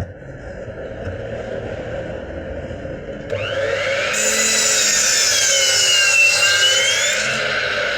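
A power tool working wood, running steadily and then getting much louder about three seconds in, its whine dipping in pitch and rising again as it works.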